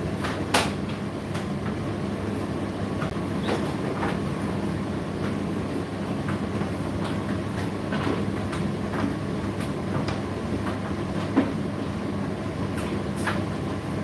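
Indesit IDC8T3 condenser tumble dryer running mid-cycle: a steady hum from the motor and fan with the drum turning. Irregular light clicks and knocks come from the drum, with a sharper knock just after the start and another about eleven seconds in.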